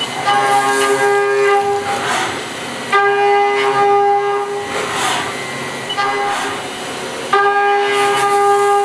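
End mill roughing a metal bar on a CNC machining centre: a steady whine with overtones while the cutter is in the cut, breaking off between passes twice and coming back, over the hiss of flood coolant spray.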